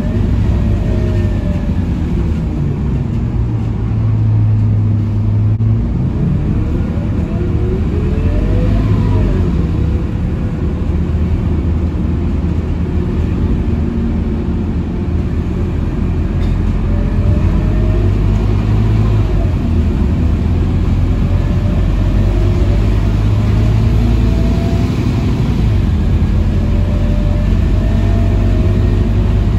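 Scania K230UB Euro 5 city bus under way, heard from inside the passenger cabin: the five-cylinder diesel engine drones steadily, its note rising and falling as the bus speeds up and eases off, over road and tyre noise.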